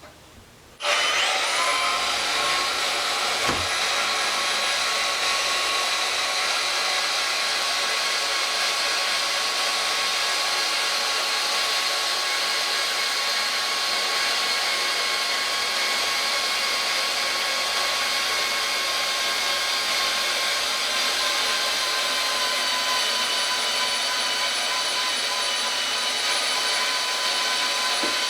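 Portable bandsaw switching on about a second in and running steadily with a high whine of several fixed tones, its blade cutting through a weld on a metal halide lighting transformer's steel core.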